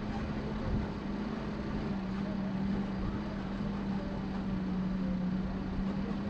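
Vehicle engine running at a steady pitch, dropping slightly about two seconds in and then holding.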